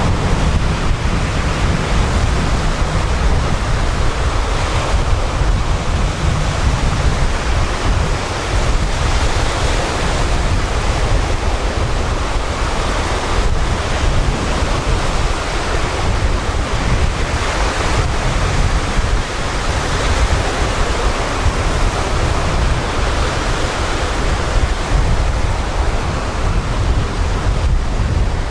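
Sea surf breaking and washing up the beach in a continuous rush, with wind rumbling on the microphone underneath.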